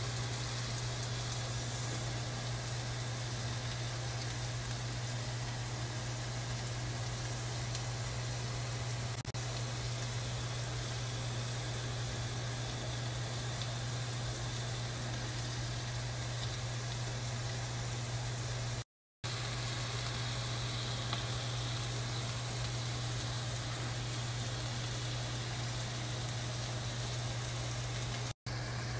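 Chicken breast pieces sizzling as they sauté with onion, garlic and whole spices in a nonstick pan, over a steady low hum. The sound cuts out briefly twice, about two-thirds of the way through and near the end.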